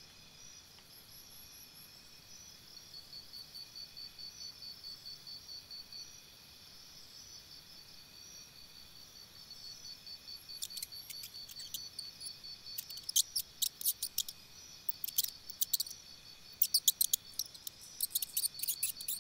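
Outdoor insect chorus of steady high trilling, with a louder pulsed trill about three seconds in. From about ten seconds on, bursts of sharp, high clicking or crackling come and go.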